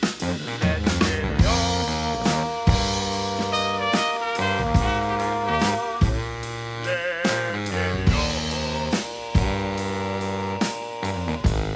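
Brass band playing a medley with a drum kit keeping a steady beat, horns holding long notes over it.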